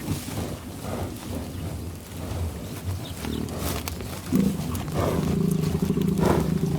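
Cow mooing: one long, low moo begins about two-thirds of the way in and carries on to the end, after a few seconds of lower, rougher cattle sounds.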